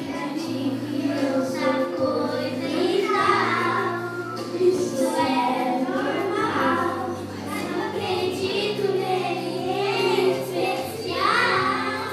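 A group of schoolchildren singing a song together over instrumental accompaniment, with a steady low bass line under the voices.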